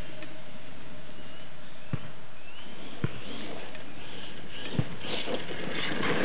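Electric 1/8-scale RC truck running at a distance: faint high whines that rise as the motor spins up, over a steady hiss. There are three sharp knocks, about 2, 3 and 5 seconds in.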